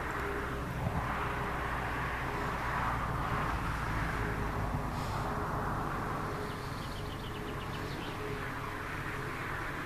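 Nordex N90 wind turbine running, heard from the foot of the tower: a broad swishing hiss from the turning blades that swells and eases, over a faint steady hum and low rumble. A few faint chirps from a bird come about seven seconds in.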